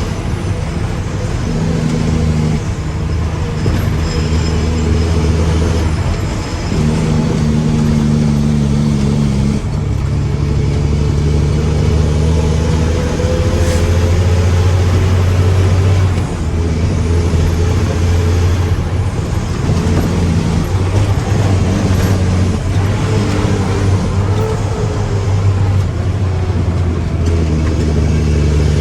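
Mack truck's diesel engine running, its speed stepping up and down several times.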